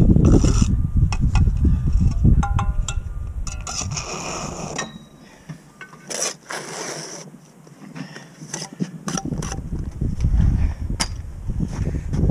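Block-laying work: scraping and rubbing of a trowel and mortar against concrete blocks, with scattered sharp knocks, over a low rumble that drops away for a few seconds in the middle.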